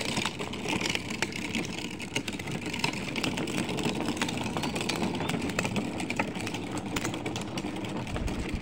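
Hard plastic wheels of a ride-on toy rolling over rough concrete as it is pulled along: a steady rumble with many small clicks and rattles.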